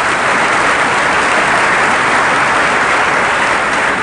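Large audience applauding steadily, the clapping beginning to die away near the end.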